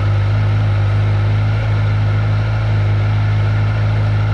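Kawasaki Ninja 1000SX's inline-four engine idling steadily just after being started, at about 1,500 rpm.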